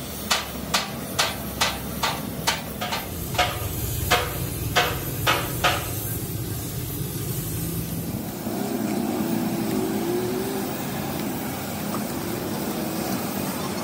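About a dozen sharp knocks, roughly two a second, over the first six seconds, then steady traffic and street noise.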